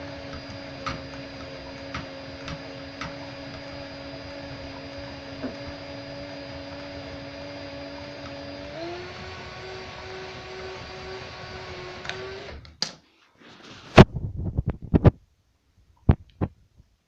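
Electric motor of a coil-winding machine running with a steady whine and a few light ticks; its pitch shifts about nine seconds in. The motor stops near the end, followed by several sharp knocks and clicks.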